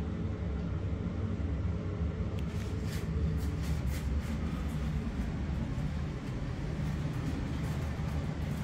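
A steady low hum, with a number of short light clicks from about two and a half seconds in.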